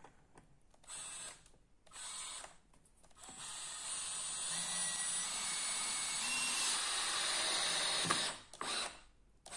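Cordless drill-driver driving a waxed stainless steel screw into an oak rail: two short bursts, then a steady run with a motor whine for about five seconds that stops suddenly, then one more short burst near the end.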